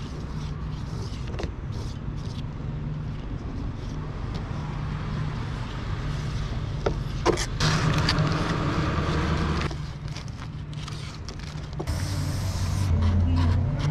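Aerosol spray-paint can hissing in two bursts of about two seconds each, one near the middle and a louder one near the end, over a steady low hum, with a few light clicks in between.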